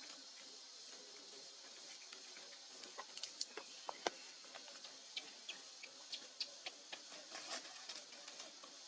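Irregular sharp clicks and taps, starting about three seconds in and going on almost to the end, over a faint steady high hiss.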